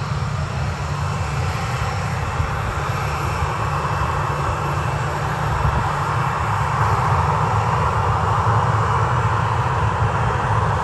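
Boeing 737-800's twin CFM56-7B turbofan engines running as the airliner rolls slowly along the runway: a steady jet rumble and hiss that slowly grows louder.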